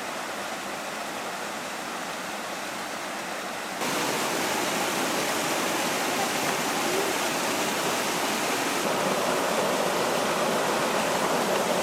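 Mountain stream flowing, a steady rush of water that becomes louder and fuller about four seconds in.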